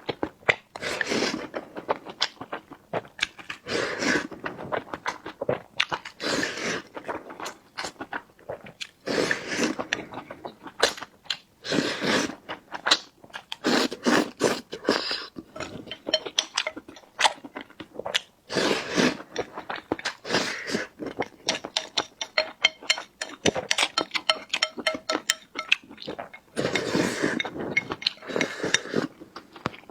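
Close-miked eating sounds: a person chewing and biting food, with many short wet mouth clicks and repeated bursts of chewing.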